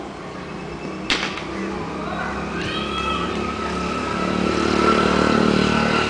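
A cricket bat strikes the ball with one sharp knock about a second in. Then a motor vehicle passes, its engine growing louder to a peak near the end and easing off.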